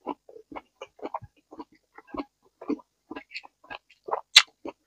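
Close-miked mouth sounds of eating papaya salad and raw vegetables: wet chewing and lip-smacking in quick, irregular clicks, with one sharper, louder click about four and a half seconds in.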